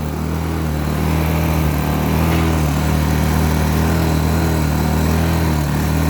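Blackridge BRG 800 inverter generator's small engine running and surging, its speed wavering up and down, a little louder from about a second in. The surging is a fuel problem: old, stale fuel is starving the engine.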